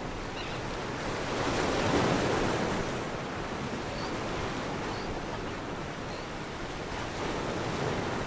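Sea surf washing on a beach, with one wave swelling louder about two seconds in before settling back to a steady wash.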